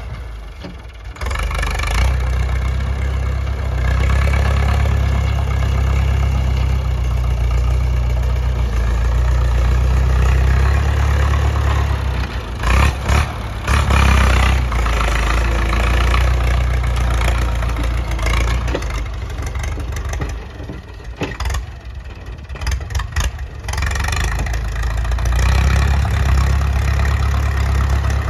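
Massey Ferguson farm tractor's engine running steadily under load as the tractor pushes soil with its front dozer blade. The sound fades somewhat past the middle and grows loud again near the end.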